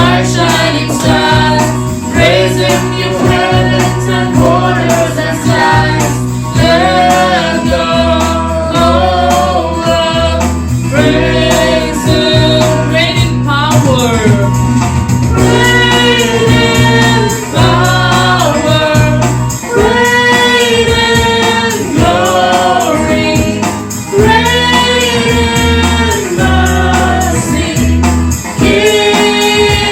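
Christian worship song: singing voices over a bass line and a steady percussion beat.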